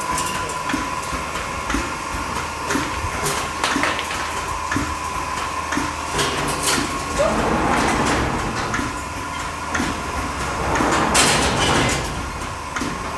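Milking machines running in a milking shed: a steady whine with a regular pulse about once a second, and two longer hissing surges, one around the middle and one near the end.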